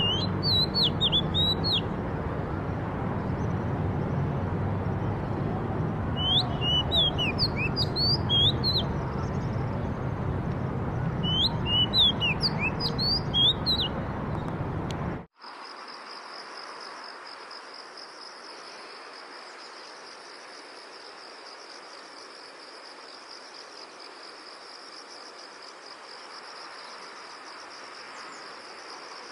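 Songbirds chirping in three bursts of quick, darting notes over a steady background rush. About halfway through, it cuts abruptly to a steady high-pitched insect trill, like crickets.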